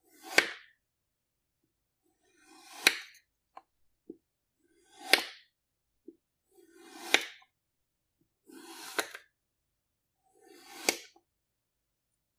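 A knife slicing through packed kinetic sand, six cuts about two seconds apart: each a short, crunchy, gritty swish that builds and ends in a sharp tap as the blade goes through.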